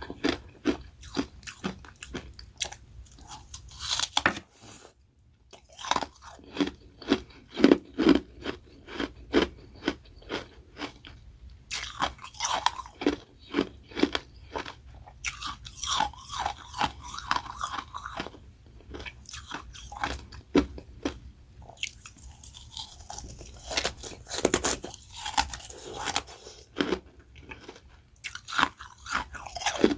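Close-up biting and chewing of ice: carbonated ice rounds topped with refrozen freezer-frost shaved ice, cracking in many sharp crunches in quick succession. There is a brief pause about five seconds in.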